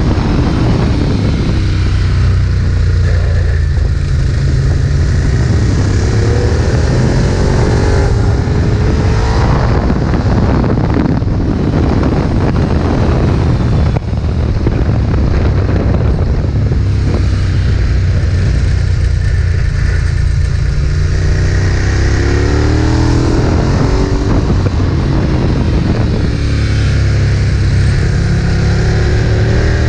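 Ducati 1098's L-twin engine under hard acceleration, its pitch rising again and again as it pulls through the gears. It eases off around the middle, then pulls hard up through the revs once more near the end.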